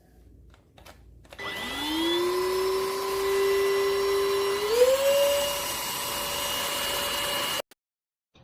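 ENOLUX K7 Pro cordless vacuum cleaner switched on, its motor spinning up with a rising whine and settling to a steady hum and hiss. A few seconds later it steps up to a higher pitch, runs steadily, and cuts off suddenly near the end.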